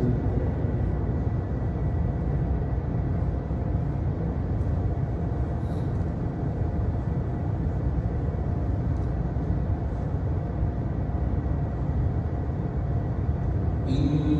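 Steady low rumble and hiss of a large prayer hall's fans and ventilation, with a faint steady hum and a few faint ticks.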